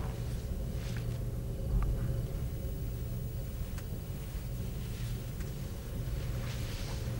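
A low, steady rumbling hum, with a few faint soft ticks over it.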